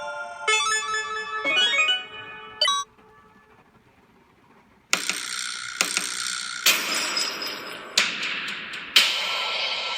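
Game-style 'point' sound effects played from a sound-effects app. First comes a bright chime jingle of several quick notes lasting about three seconds. After a short pause come loud shimmering bursts with ringing tones, about one a second.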